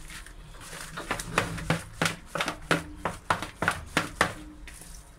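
Hands squishing and slapping raw chicken pieces through a thick spice marinade in a plastic bowl: a quick, irregular run of wet smacks, several a second.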